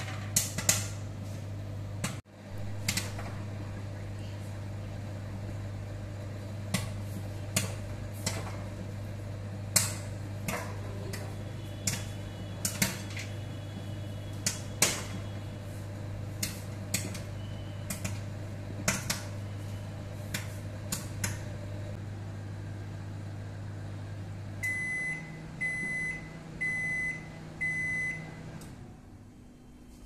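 Samsung microwave oven running with a steady hum while popcorn kernels pop inside it, sharp single pops every second or so that thin out after about twenty seconds. Near the end the hum cuts off and the oven beeps four times, signalling that the cooking time has run out.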